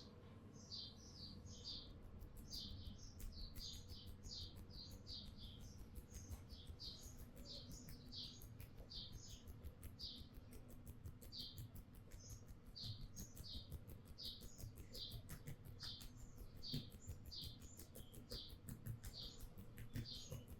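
Faint close rubbing and fine rapid clicking of hands working over a person's scalp and hair in a head massage, with a small bird chirping repeatedly in short high notes, about one or two a second.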